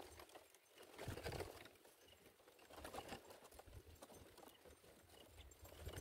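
Near silence, with a few faint low thumps about a second in and again around three seconds.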